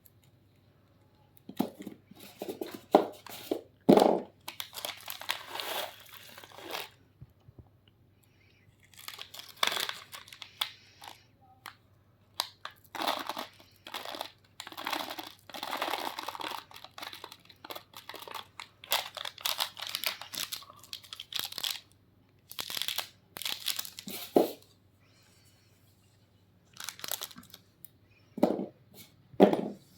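Plastic candy wrappers crinkling and tearing, mixed with crisp crunches of candy biscuits, in bursts of a few seconds with short quiet pauses between.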